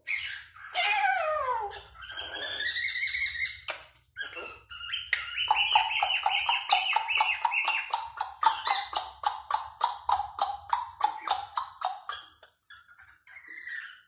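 African grey parrot whistling: a few falling whistles, then a rising one, then a long run of quick repeated notes at a steady pitch, about four a second, that fades out near the end.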